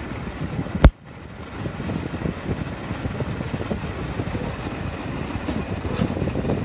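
Imasu centrifugal bathroom exhaust fan running, heard from inside its housing as a steady low rush of air. A sharp knock comes about a second in, with a lighter click near the end.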